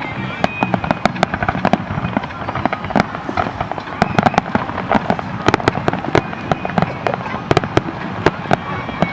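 Fireworks display going off: a dense, irregular run of sharp bangs and crackles, several a second.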